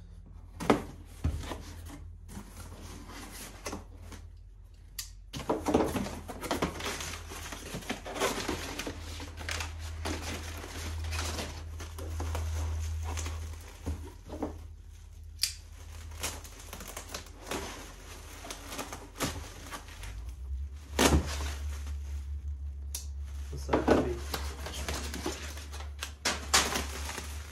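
A cardboard parcel being unpacked by hand: brown packing paper crumpling and rustling and bubble wrap crinkling, with scattered knocks and scrapes of the box and its flaps.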